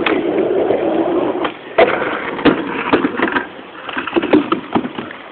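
Skateboard wheels rolling over a ramp with a steady rumble, which drops away about a second and a half in; then a series of sharp clacks and knocks from the board hitting the ramp.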